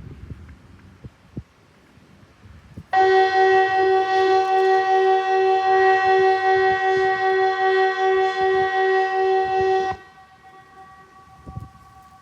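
Kockum Sonics ET 751 electronic civil defence siren sounding one seven-second blast of the Swedish warning signal: a loud steady chord of several pitches with a pulsing low tone, starting about three seconds in and cutting off sharply. A fainter siren tone carries on after it.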